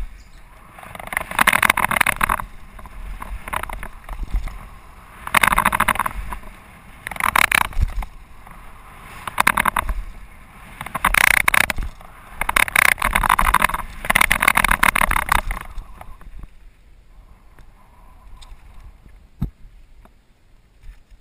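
Mountain bike rolling fast down a gravel flow trail: tyre noise and rushing air on the bike-mounted camera's microphone, swelling in loud surges every second or two. It dies down for the last few seconds, with a couple of sharp clicks.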